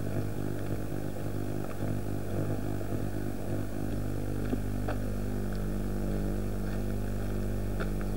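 A vehicle engine running at a steady speed, a low, even hum, with a few faint clicks and rattles.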